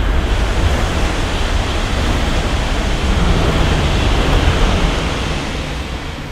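A high-speed train, an E5-series Shinkansen coupled to an E3-series Komachi, passing on a viaduct: a loud steady rush of air and wheel noise over a low rumble. It is loudest around the middle and fades as the train pulls away.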